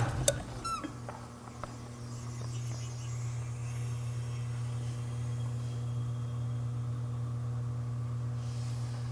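Belt-drive Norge Rollator refrigerator compressor switched off: a click and a brief run of falling squeaks as it coasts to a stop, then a steady low hum.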